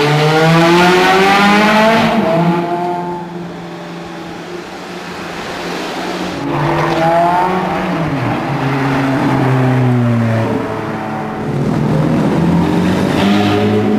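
Ferrari supercar engines accelerating hard in a concrete tunnel, a red F430 first, with the exhaust echoing off the walls. The pitch climbs steeply for about two seconds, then drops off. It climbs again about six and a half seconds in, runs high until it falls away near ten and a half seconds, and comes back loud near the end.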